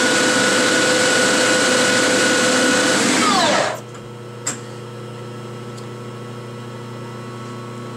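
Metal lathe spindle running at about 2,000 RPM, with a chrome-moly tube spun hard against a stationary tube to friction-weld them: a loud, steady machine noise carrying two steady whining tones. About three seconds in, the drive is cut and the spindle coasts to a stop, its tones falling in pitch. After that comes a much quieter steady hum, with a single sharp click a little later.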